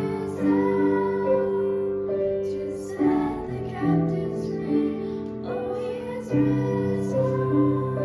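Female and children's voices singing a slow sacred song with piano accompaniment, holding long notes.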